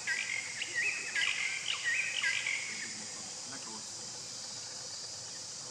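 Insects droning steadily on one high pitch. Over it, in the first three seconds, a bird gives about five short whistled calls in a row, each rising and then holding.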